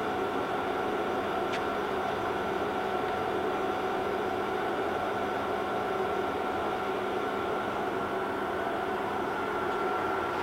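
Summit 32 x 120 engine lathe running at a steady spindle speed: the geared headstock gives an even whine over the machine's mechanical noise.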